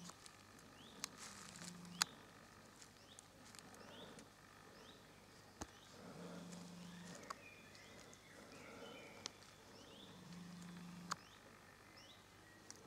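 Faint woodland ambience: small birds chirping quietly with short rising calls again and again, with a few sharp clicks.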